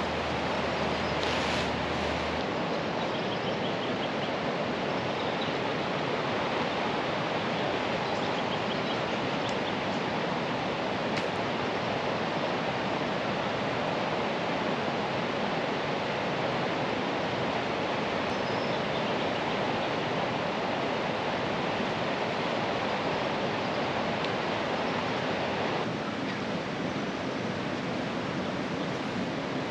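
Steady rush of a river running high after heavy rain, an even wash of water noise that drops slightly in level near the end.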